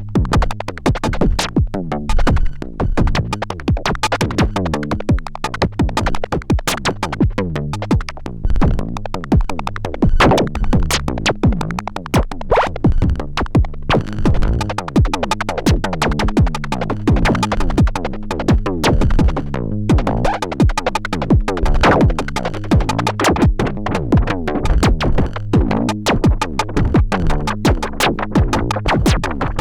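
Erica Synths Perkons HD-01 four-voice drum synthesizer playing a dense, steady electronic drum pattern, its pitched drum tones falling in pitch after each hit as the knobs are tweaked.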